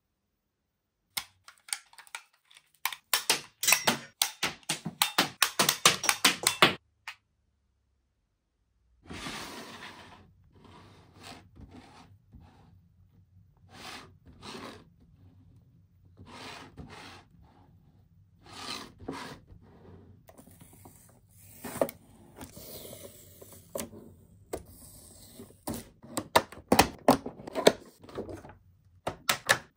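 Plastic toy packaging being handled and opened: runs of rapid plastic clicking and crackling, with scattered rustles and taps between them and a silent pause of about two seconds early on.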